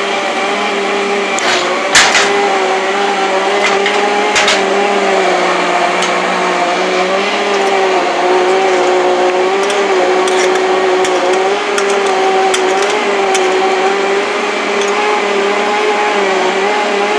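Countertop blender running steadily on its chop setting, mixing cake batter: a constant motor hum that wavers slightly in pitch. A few sharp clinks about two and four and a half seconds in.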